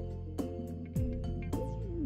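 Background music with a steady beat: held chords and a low note sliding downward on each beat, about every half second.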